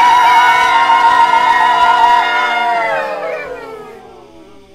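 Several voices holding long improvised sung notes together, the loudest one wavering with vibrato. Near the end they slide down in pitch and fade out.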